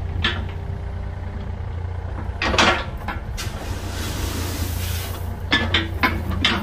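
Mini excavator's diesel engine running steadily while its steel bucket works a pile of gravel, with clanks and scraping from the bucket about two and a half seconds in and again near the end.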